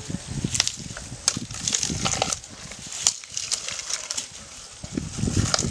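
An adult elephant pulling and chewing leafy grass fodder: rustling and crunching of the stalks, with a few sharp crackles in the first three seconds.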